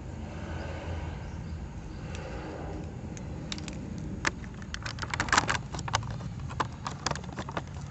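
Clicks and clatter of plastic toy pieces being handled and fitted together, sparse at first and then a quick run of clicks about five seconds in, over a low steady hum.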